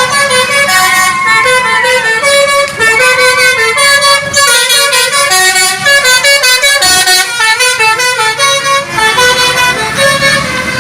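A bus's multi-tone 'telolet' horn playing a quick tune of short, stepped notes.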